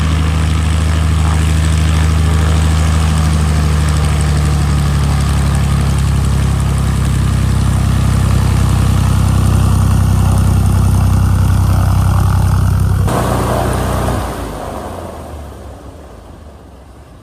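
1964 Piper PA-25-235 Pawnee's Lycoming O-540 six-cylinder engine running steadily, then shut down about thirteen seconds in, the sound dying away over the last few seconds.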